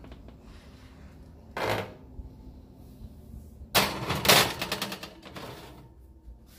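Metal sheet pan sliding onto the oven's wire rack: a loud, rapid rattling scrape a little under four seconds in, after a shorter scrape near two seconds.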